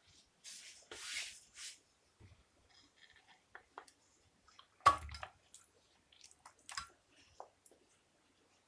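Marinated chicken pieces tipped from a glass bowl into a nonstick pan, landing with one wet thud about five seconds in, followed by soft squishes and small clicks as the last pieces and masala slide out. A few soft brushing noises come before it.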